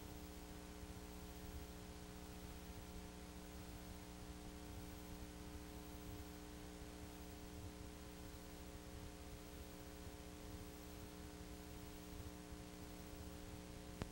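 Steady electrical hum with several fixed tones over a faint hiss, and no other sound: an empty audio track.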